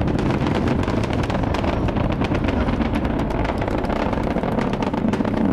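Launch rumble of Space Shuttle Endeavour's solid rocket boosters and main engines during ascent: a steady low roar laced with dense crackling.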